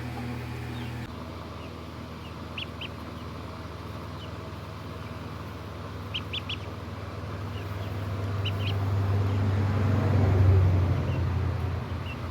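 Ducks calling in short, high, separate notes: a pair, then three quick ones, then another pair. Under them is a steady low droning hum that swells to its loudest about ten seconds in and then fades.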